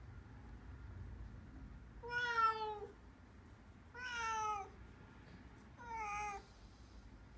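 Black kitten meowing three times, about two seconds apart, each meow clear-toned and falling slightly in pitch; the first is the longest and loudest.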